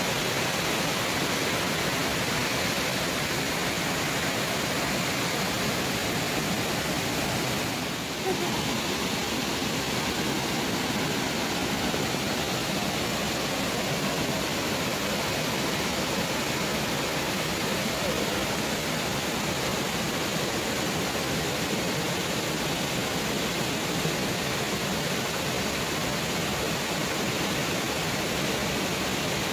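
Steady rushing of a waterfall and its stream tumbling over boulders, a continuous even roar of water that dips briefly about eight seconds in.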